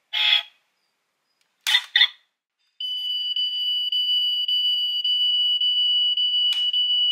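Sound module of a die-cast Toyota AE86 Trueno model car: a couple of short bursts of sound in the first two seconds, then a steady, high-pitched electronic alarm-like tone for about four seconds, with a click near the end.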